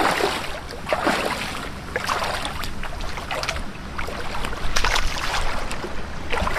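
Rubber boots wading through shallow seawater, with a splash and swish of water at each stride, about one step a second.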